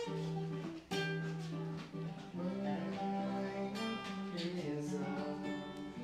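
Two acoustic guitars, one of them a nylon-string classical guitar, played together: strummed chords with held and plucked notes, sharp strums about a second in and again near four seconds.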